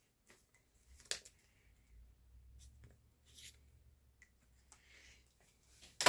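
Near silence: room tone with a few faint clicks and rustles.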